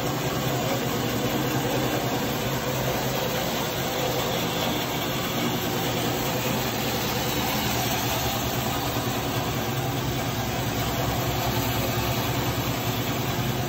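Oliver 116-D 36-inch vertical band saw running without a cut: a steady motor hum with the whir of the blade and wheels.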